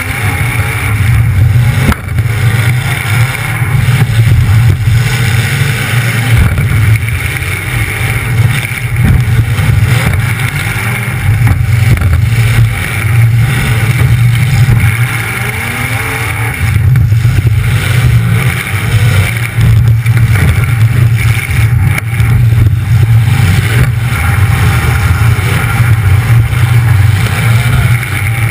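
Demolition derby car's engine running loud through twin open exhaust stacks on the hood, its pitch rising and falling as it is driven.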